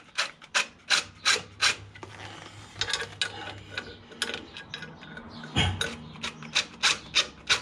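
Cordless DeWalt impact driver run in many short bursts, winding the clutch pressure-plate bolts in gradually, a bit at a time. There is a heavier thump about five and a half seconds in.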